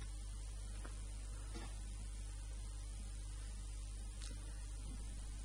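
Faint steady low hum with a light hiss, with a few very faint ticks.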